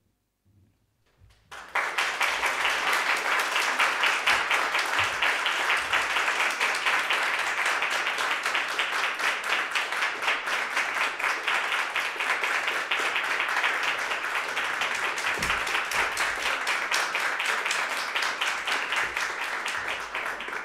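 Audience applauding. The clapping starts suddenly after a brief silence, about a second and a half in, and then keeps going at an even level.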